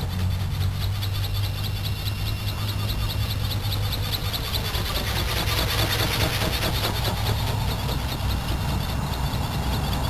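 Wind buffeting the microphone, a steady low rumble, with a rapid, evenly pulsed high chirping running underneath.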